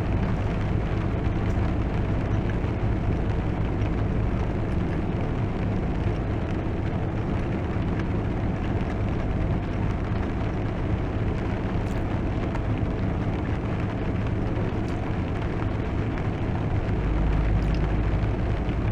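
Rain falling steadily on a car's roof and windshield, heard from inside the car, over a steady low hum that swells near the end.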